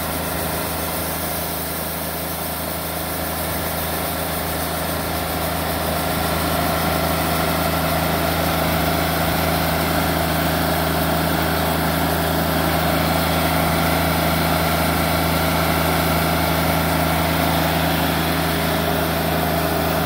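Diesel engine of a portable band sawmill running steadily, growing louder about six seconds in.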